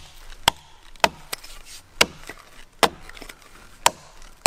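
A Gränsfors Scandinavian Forest Axe chopping into the trunk of a small green tree, cutting a felling notch. Sharp strikes land about once a second, six in all, some followed by a lighter click as chips break free.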